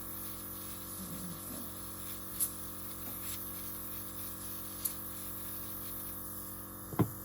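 Small air compressor running with a steady hum and a hiss of blown air, used to push wet acrylic paint outward. A sharp click near the end.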